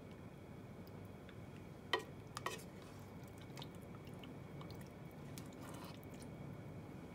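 A plastic ladle scooping saucy braised food out of a stainless steel cooker pot: soft wet squelches and light scrapes, with two sharp knocks about two seconds in.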